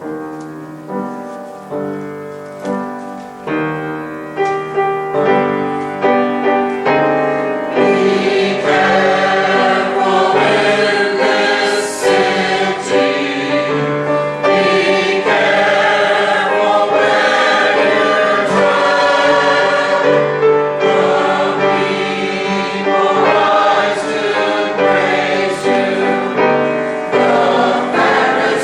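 Choir singing a church cantata with accompaniment. Separate struck notes open it, and the voices fill in over the first several seconds into full choral singing.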